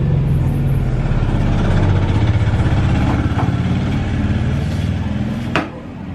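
An engine running steadily at idle close by, a loud, low, even hum. A single sharp click about five and a half seconds in.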